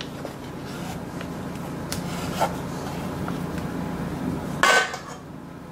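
Knife blade scraping and cutting through cookie dough around a metal cookie cutter on a wooden cutting board: a steady rough rubbing with a few small clicks and one louder knock near the end.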